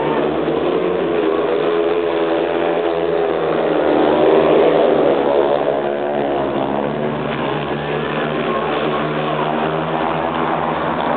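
Speedway motorcycles racing round the track, their 500 cc single-cylinder engines running hard and wavering in pitch as the riders go through the bends. The sound swells to its loudest about four to five seconds in.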